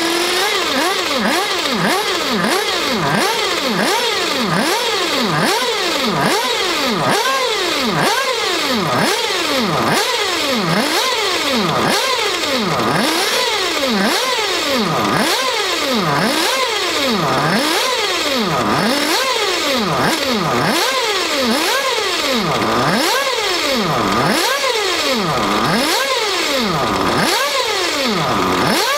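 Nitro engine of an XRAY RC buggy revved again and again in quick throttle blips, its pitch rising to a high scream and dropping back, about one to two times a second. This is top-end tuning: the high pitch at full throttle is what the tuner listens to while leaning out the mixture, and the repeated blips clear the engine between adjustments.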